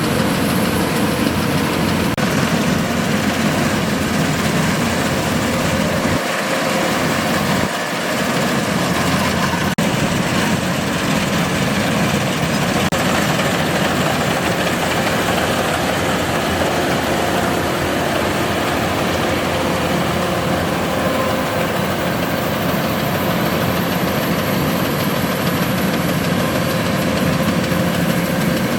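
Kubota DC-105X combine harvester's diesel engine and machinery running steadily at a constant pitch.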